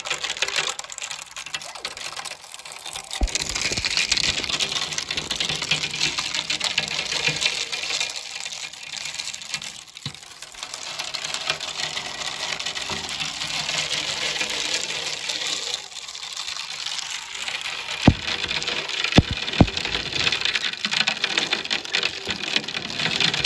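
Sleet and wet snow pattering against a window pane, a dense crackle of many small ticks, with a few sharper knocks about three seconds in and again around eighteen to twenty seconds.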